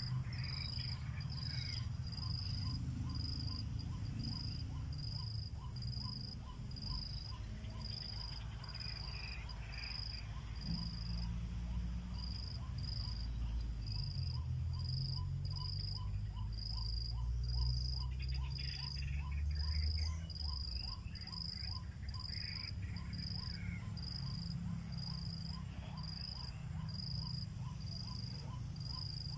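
Insects chirping in steady rhythms: a high pulsing note about one and a half times a second over lower ticks about twice a second. A few scattered harsh bird calls come through, over a low wind rumble that swells in the middle.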